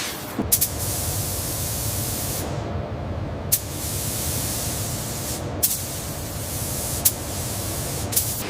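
A hissing spray in stretches of a couple of seconds, stopping for about a second near the middle and briefly again later, with sharp clicks where it starts and stops, over a steady low hum.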